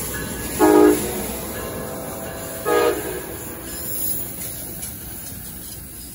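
Siemens Charger diesel locomotive's horn sounding two short blasts about two seconds apart as the passenger train rolls past, over the steady rumble of the passing cars, which slowly fades.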